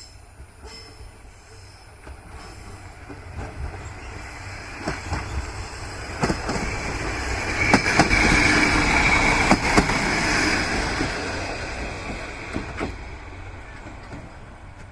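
Diesel railcar passing over a level crossing. Its rumble builds, is loudest about halfway through and then fades. Wheels clack sharply over rail joints several times, with a faint wheel squeal at the loudest point.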